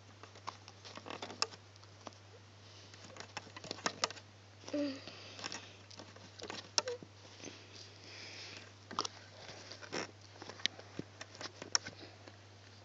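Irregular small clicks and taps of fingers working rubber loom bands onto the plastic pegs of a loom-band loom, over a steady low hum.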